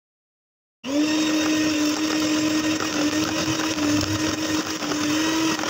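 A small electric kitchen mixer motor running at one steady speed, mixing chocolate cake batter. It starts suddenly about a second in and keeps an even, unchanging hum.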